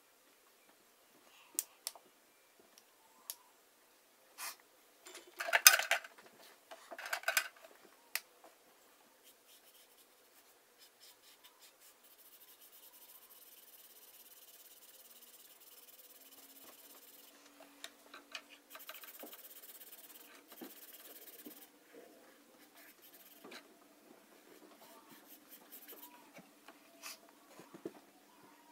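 Felt-tip marker rubbing steadily across sketchbook paper as a large dark area is filled in. Before that come scattered clicks and two louder handling noises about six and seven seconds in.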